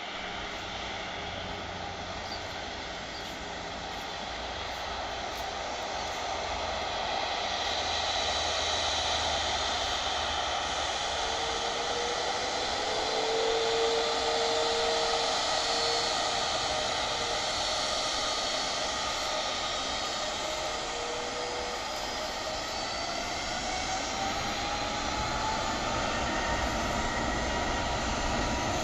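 Airbus A330-300's Rolls-Royce Trent 700 turbofans running as the airliner taxis on the runway: a steady jet whine over a dense rush, slowly growing louder over the first several seconds. One whine rises in pitch around the middle.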